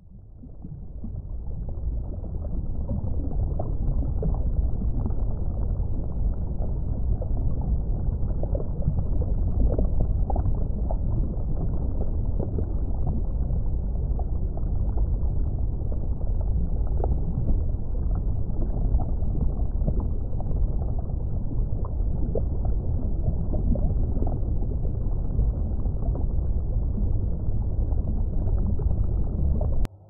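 Underwater ocean ambience: a steady, muffled low wash of water with faint scattered crackles. It fades in over the first couple of seconds.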